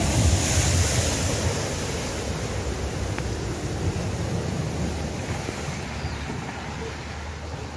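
A car ploughing fast through a flooded ford, throwing up a big splash of water; the rush of spray and churning wash is loudest at first and dies away slowly as the car pulls clear.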